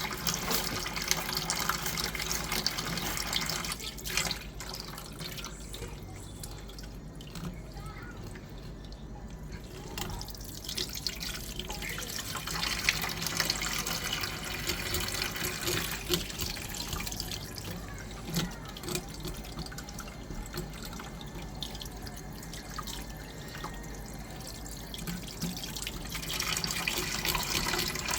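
Tap water running and splashing in a sink, stronger and weaker by turns, with scattered small clicks and knocks.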